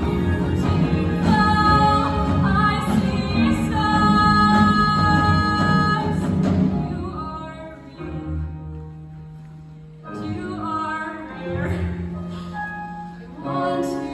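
Live stage-musical number: the cast sings with accompaniment, full and loud for the first half. It then drops to a quieter, sparser passage of held notes as the song winds down.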